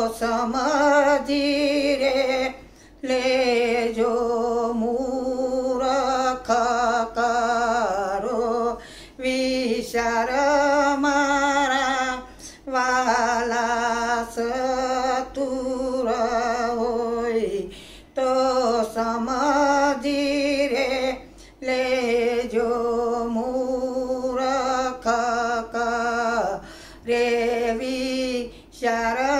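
A woman singing a Gujarati kirtan, a devotional hymn, in slow drawn-out phrases with a wavering voice and short breaks between them.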